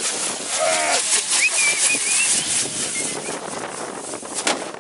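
A torito firework frame fizzing and crackling as it burns, giving a dense hiss full of sharp little pops. A few high, wavering calls rise over it in the first half.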